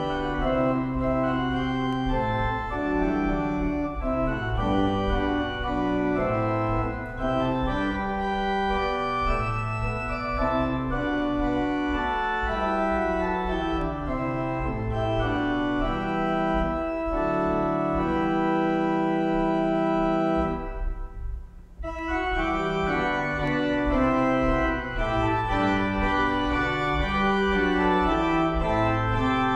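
Church organ playing slow, sustained chords over a moving bass line. About two-thirds of the way through, a long held chord breaks off into a brief pause before the playing resumes.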